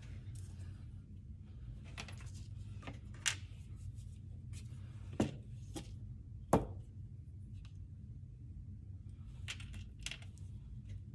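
Scattered light snips and clicks of hand-cutting, with three sharper clicks about a third and halfway through, over a steady low hum.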